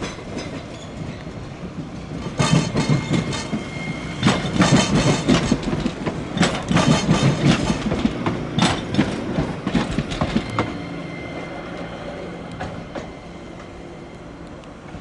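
Hiroshima Electric Railway streetcar's wheels clattering over track joints, a run of knocks loudest from about two to ten seconds in, then a quieter, steady hum with a faint whine.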